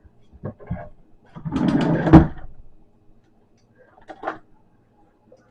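A drawer or storage compartment sliding along with a scrape for about a second and shutting with a sharp knock, after a couple of light knocks. Quieter handling clatter follows near the end.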